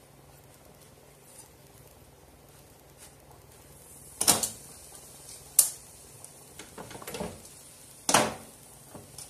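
Kitchen handling noises: three sharp knocks about four, five and a half and eight seconds in, with a few lighter clicks between them, after a quiet start.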